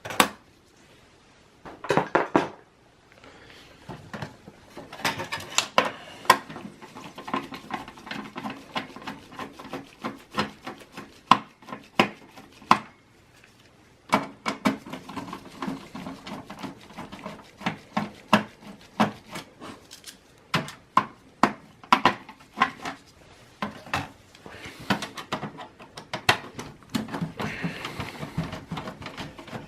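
Phillips screwdriver backing out the motherboard screws in a Dell Optiplex 780's metal chassis: runs of quick clicks and metallic clinks, with short pauses.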